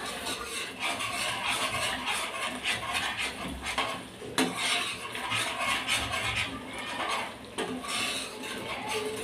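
A spatula stirring and scraping a thick, oily cream-and-masala gravy around a kadai, with a steady wet scraping. There is one sharp click about four seconds in.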